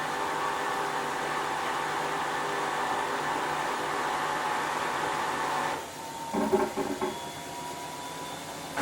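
Esatto front-loading washing machine running with a steady motor hum and whine. About six seconds in the running sound drops away sharply, followed by a few short irregular knocks or rattles and a faint held tone.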